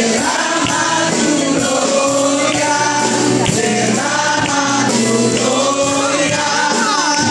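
Live Spanish-language worship song: a man sings lead through a handheld microphone, with a group of women singing along over musical accompaniment.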